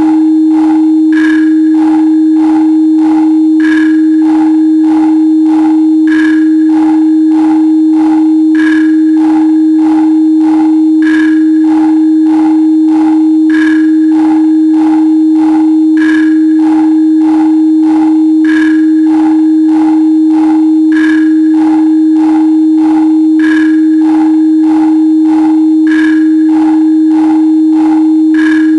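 Synthesised 314.15 Hz sine tone held steady, with a soft electronic beat pulsing underneath at about 97 beats per minute and a brighter tick on every fourth beat.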